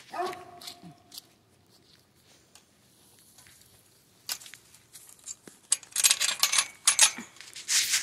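A short animal call at the start, pitched and sliding down at its end, then a quiet spell, then a run of loud clattering and rustling over the last few seconds.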